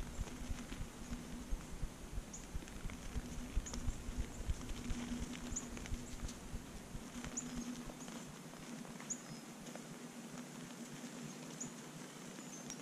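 Whitetail deer feeding on spread feed in snow: soft scattered thumps and patter from hooves and feeding, thinning out after about eight seconds. Short high bird chirps come every second or two over a faint steady hum.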